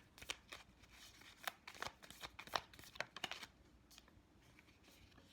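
A deck of cards being shuffled by hand: a faint run of quick, soft clicks and flicks for about three and a half seconds, then only faint handling.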